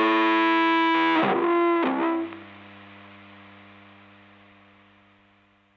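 Closing chord of a rock song played through heavy distortion and effects, held and ringing. Two gliding sweeps come about one and two seconds in, then the sound drops sharply and a faint ringing tail fades away.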